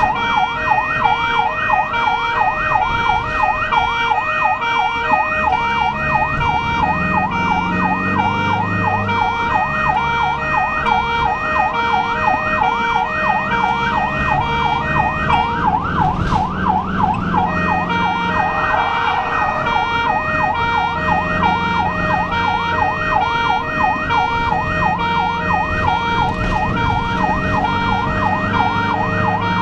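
Ambulance siren sounding continuously in a fast rising-and-falling yelp during an emergency run, heard from inside the ambulance cab over engine and road noise.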